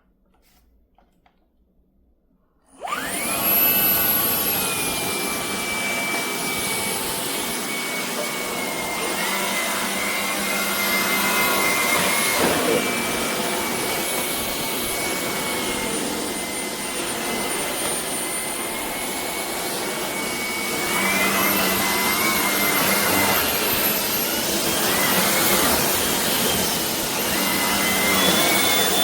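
Shark IP3251 cordless stick vacuum switching on abruptly and running with a steady high motor whine. The whine steps up in pitch about two-thirds of the way through and again near the end.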